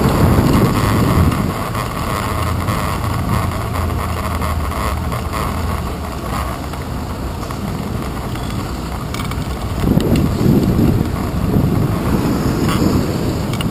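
Wind and road noise on a handlebar-mounted action camera riding a bicycle through city traffic, with cars passing alongside. The rumble is heavier at the start and again about ten seconds in, and a few light ticks come near the end.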